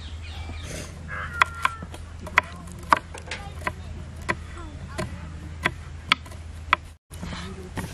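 Two kitchen knives chopping green chillies on a wooden cutting board: sharp, irregular knocks of the blades hitting the board, about one or two a second, over a steady low hum.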